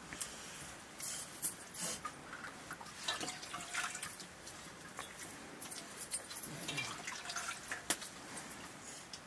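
Eating by hand from metal plates: fingers mixing and scooping rice and curry, with scattered small wet clicks and light clinks of metal.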